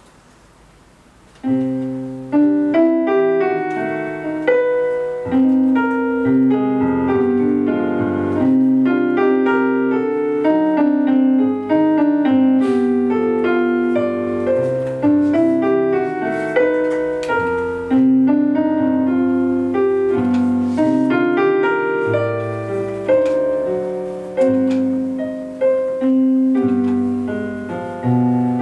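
Solo piano music played on a digital stage piano, starting about a second and a half in: slow, sustained chords under a mid-range melody.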